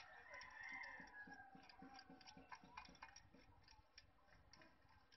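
Faint, irregular metallic clicks and ticks from a valve spring compressor and valve keepers as the valve springs are refitted on a Toyota L cylinder head during valve stem seal replacement.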